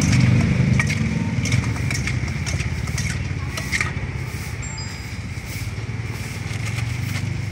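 A motor vehicle engine rumbling, loudest at the start, easing off and building again near the end, with light clinks and scrapes of a metal ladle tossing salad in a stainless steel bowl during the first few seconds.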